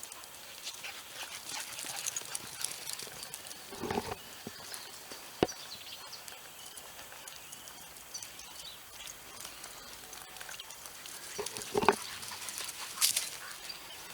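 Two dogs playing rough, a pup and an older dog: scuffling with scattered small knocks and two louder short animal noises, about four seconds in and near the end.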